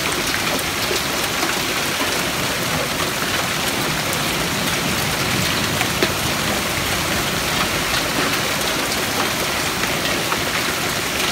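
Hail mixed with heavy rain falling on a street: a dense, steady hiss with many sharp little ticks of hailstones striking the pavement.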